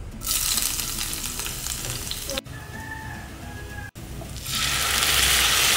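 Sliced red onions frying in hot oil in a pan, a steady sizzle broken by two abrupt cuts and loudest over the last second or so.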